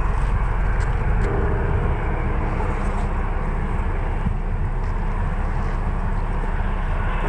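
Jet airliner engines, a loud, steady rumble close by.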